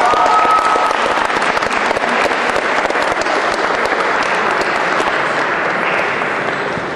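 Audience applauding, dying down a little near the end.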